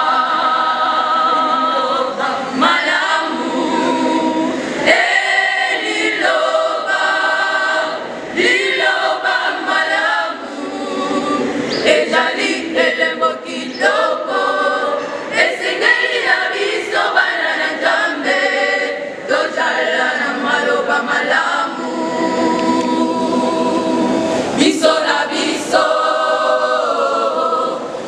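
A choir singing together at a worship service, many voices in one continuous song.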